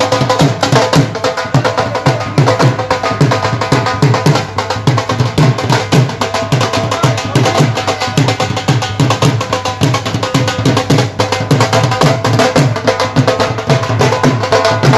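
Dhol drums played in a fast, driving dance rhythm: deep bass strokes with sharp stick clicks on top, along with a melody.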